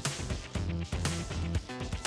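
Background music with a steady beat about once a second over held bass notes.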